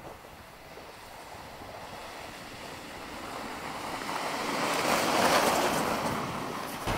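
Nissan X-Trail SUV approaching on a packed-snow road and passing close by: a rushing hiss of tyres on snow that swells to its loudest about five seconds in, then eases off slightly.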